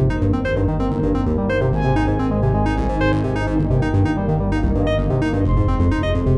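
Samsung Galaxy S20 ringtone playing: an electronic melody of quick synthesizer and keyboard notes over a low bass.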